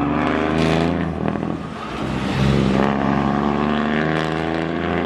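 Diesel engine of a semi-truck tractor unit hauling a container trailer, running under load as it drives through a junction. Its level dips briefly about a second and a half in, then picks up again.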